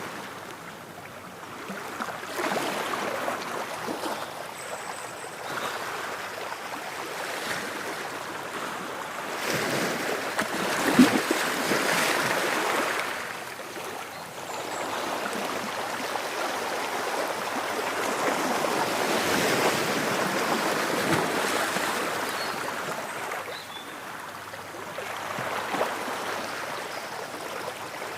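Ocean waves washing onto a shore, swelling and ebbing in slow surges every few seconds, with a sharper splash about eleven seconds in.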